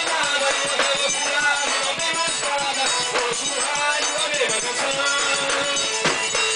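Live piano accordion playing a lively melody, with a triangle keeping a steady, rapid beat.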